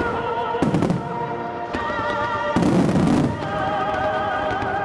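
Aerial fireworks bursting in clusters of sharp bangs with a deep rumble, the loudest cluster about three seconds in. Under them, music with long wavering held notes plays over loudspeakers as the show's soundtrack.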